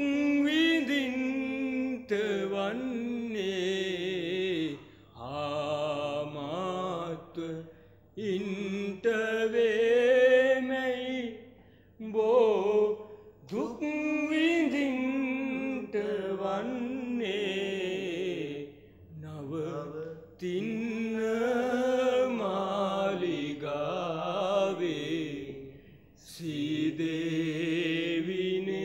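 A man singing a slow Sinhala song in long held phrases, each note drawn out with a wavering pitch, breaking off briefly between lines.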